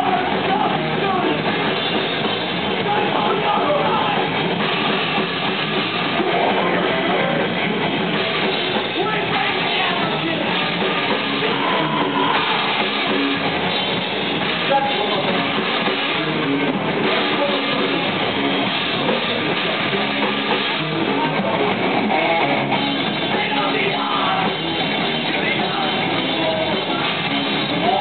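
Live rock band playing loud and without a break: electric guitar and drum kit, with a singer's voice over them.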